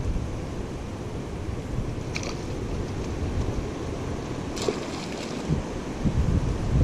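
Wind buffeting the microphone in a steady low rumble, with two brief clicks about two seconds and five seconds in.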